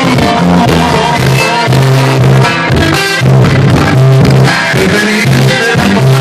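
Loud band music: a plucked guitar over repeating bass notes with a steady beat.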